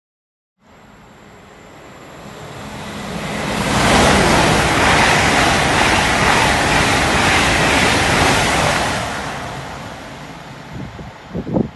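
Two coupled Hitachi Class 800 units run non-stop through the station: a rush of wheel and air noise swells over a few seconds, holds loud for about five seconds as the train passes, then fades. A couple of brief, sharper sounds come near the end.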